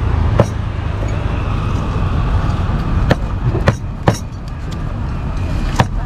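Meat cleaver chopping pieces of grilled pork on a thick round wooden chopping board: about five sharp knocks at irregular intervals, over a steady low rumble.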